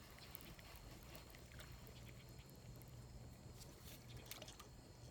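Near silence: faint outdoor ambience with a thin, steady insect drone and a few faint ticks.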